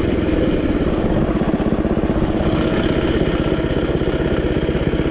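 Predator 212 single-cylinder four-stroke engine on a mini bike running steadily at a low, even speed, fitted with a freshly installed stock camshaft.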